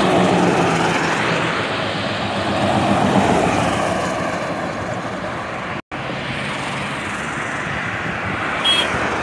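Ashok Leyland sleeper coaches passing close on a highway: a steady diesel engine drone and tyre noise. The sound drops out for an instant about six seconds in.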